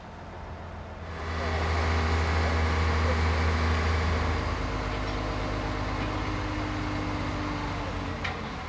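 Truck crane's diesel engine revving up about a second in and running steadily under load while hoisting, then easing off a little.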